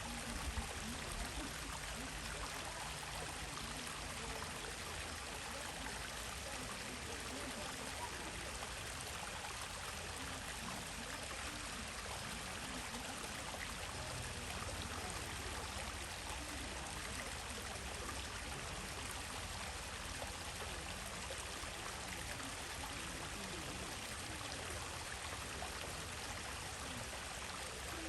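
Stream water flowing and trickling steadily over stones, an even unbroken rush.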